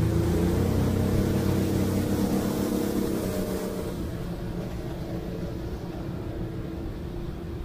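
Motorboat engine running under way, its note strong for the first few seconds and then fading as the level drops, leaving a steady wash of noise.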